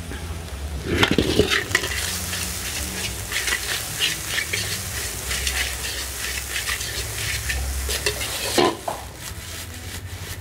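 Nasi goreng (fried rice) being stir-fried in a steel wok: a metal ladle repeatedly scrapes and clanks against the wok over the sizzle of frying, with a steady low rumble underneath. The loudest clanks come about a second in and near the end.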